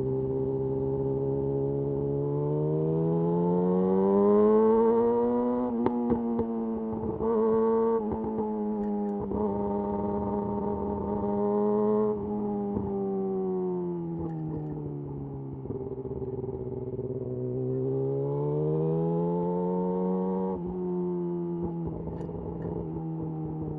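Yamaha YZF R6's inline-four engine through a de-catted Akrapovic slip-on exhaust, ridden at moderate revs. The engine note climbs over a few seconds, holds, falls away, then climbs again and settles lower. A few sharp clicks come in the middle stretch.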